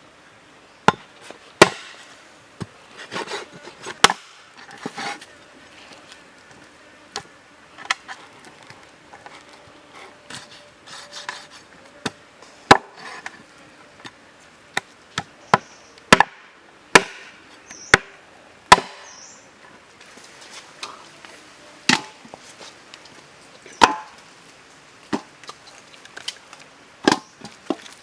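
Knife chopping on a wooden board: sharp, irregularly spaced strikes, some hard and some lighter.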